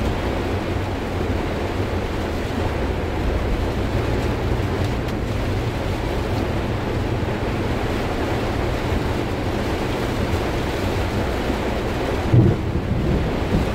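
Heavy rain falling on the roof and windscreen of a Daihatsu Gran Max, heard from inside the cabin as a steady rushing noise over a low rumble of engine and road. One brief thump comes near the end.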